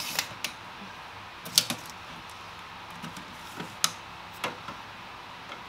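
A steel tape measure and pencil being handled against a wooden cabinet front, making about half a dozen light clicks and taps spread out over a steady background hiss.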